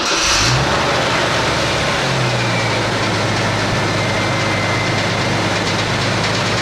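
Jeep CJ7's 4.2-litre inline-six catching on start-up and settling into a steady idle, with the revs rising slightly about two seconds in. The engine has a misfire on cylinder number 5, which the owner puts down to a stuck lifter.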